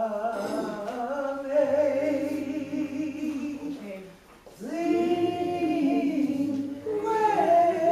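A group of voices singing a slow hymn in long held notes. The singing breaks briefly about four and a half seconds in, then picks up again.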